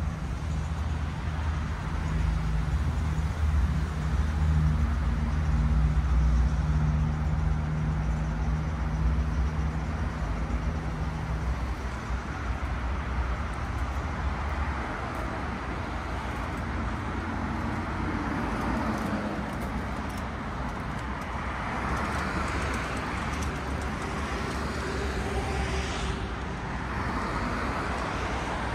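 Road traffic: a vehicle engine hums steadily close by for the first dozen seconds and then fades away, leaving the noise of cars passing.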